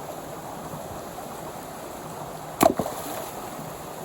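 Steady rush of flowing water from a stream or waterfall, with one sharp knock about two and a half seconds in.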